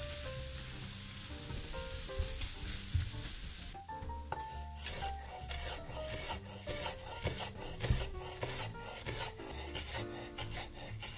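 Food sizzling as it fries in a pan, then about four seconds in the sizzle cuts off and a chef's knife chops fresh dill on a wooden cutting board in quick repeated chops. Soft background music plays throughout.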